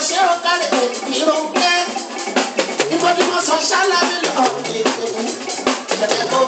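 Live Fuji band music: a drum kit struck with sticks in a fast steady beat, with a voice singing over it.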